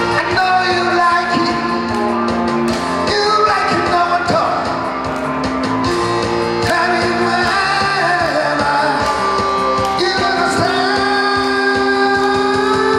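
A man singing a pop song into a handheld microphone over amplified instrumental accompaniment.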